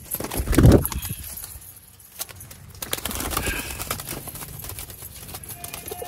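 Domestic pigeons moving about a wire-mesh loft: scattered sharp taps and clicks throughout, with a short loud rush, like a flutter of wings, about half a second in.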